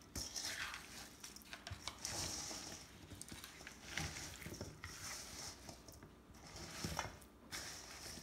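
Raw chicken pieces and sweet potato chunks stirred with a saute spoon in a stainless steel mixing bowl to coat them in oil and seasoning: irregular wet squishing and shuffling, with a few light knocks of the spoon against the bowl.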